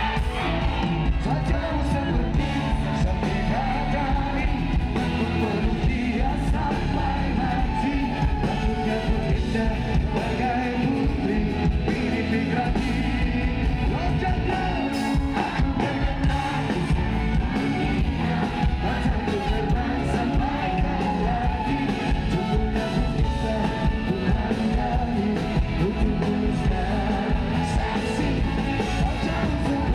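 Pop-rock band playing live through a concert PA, with singing over electric guitar, bass, drums and trumpet, heard from the audience.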